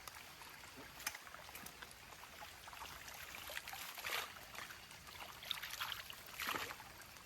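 Faint, steady running and trickling water of a pond's overflow stream after rain, with three brief louder swishes.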